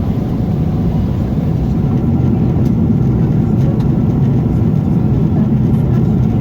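Steady low rumble of airflow and engines heard inside the cabin of a Boeing 777-300ER in cruise.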